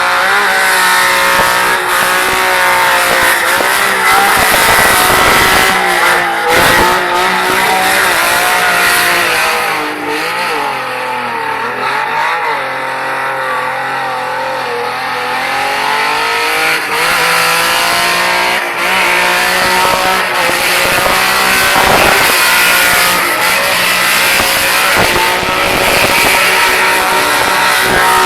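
Car engine held at high revs with the throttle pinned while drifting, its pitch wavering as the wheels spin, with some tyre squeal. The revs sag for a few seconds near the middle, then climb back.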